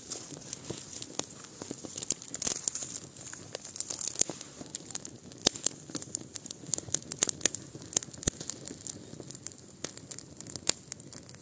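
Small campfire of dry grass and thin twigs crackling as it catches, with many sharp, irregular pops and snaps.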